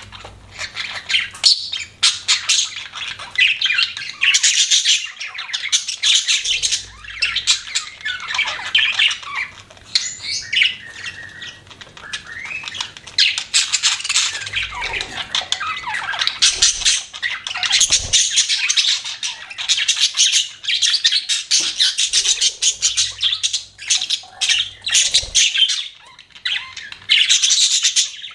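Budgerigars chattering and chirping nonstop, a busy jumble of quick high warbles and squawky calls with hardly a pause.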